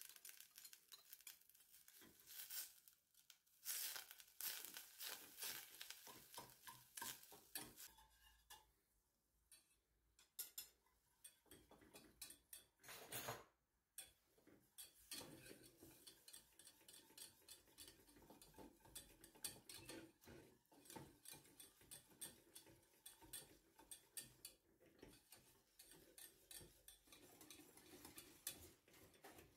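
Wire whisk clicking and scraping against a stainless steel saucepan, in a quick run of small ticks, as butter and flour are whisked together into a roux.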